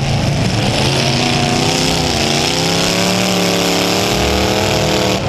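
Demolition-derby V8 engines running loud, one revving so its pitch sags and climbs again. The onboard engine is the 1990 Chevrolet Caprice Estate wagon derby car's V8.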